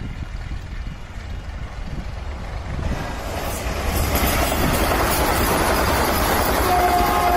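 Vande Bharat Express electric multiple-unit train running past: a low rumble that grows into a louder, steady rush of wheels and air from about three seconds in. A short steady tone sounds near the end.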